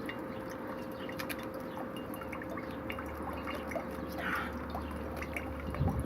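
Coconut water dripping and trickling out of a freshly opened coconut into a container, in many small irregular drops.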